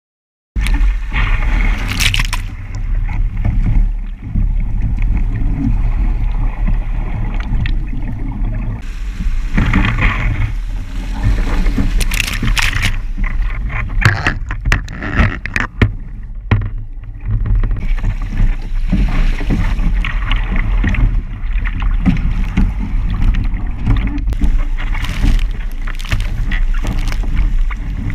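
Wind buffeting the microphone of a camera mounted on a Musto Skiff sailing dinghy, with water rushing past the hull. Several loud bursts of spray and splashing, the longest about halfway through as the boat wipes out in a wave.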